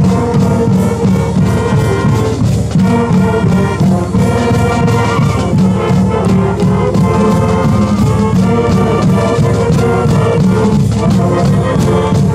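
Brass-led instrumental music with trumpets and trombones over a steady drum beat.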